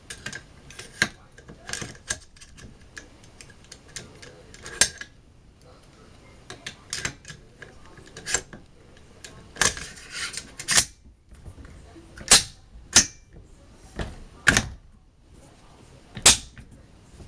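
Sharp metallic clicks and clacks of AR-15 rifle parts being fitted and worked by hand, irregular throughout, with several louder clacks in the second half typical of the charging handle and bolt carrier being worked.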